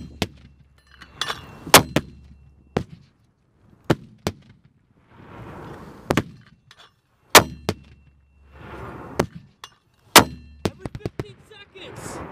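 Mortar firing rapidly for effect: a sharp, loud report every one to three seconds, several in a row, as rounds are dropped down the tube one after another.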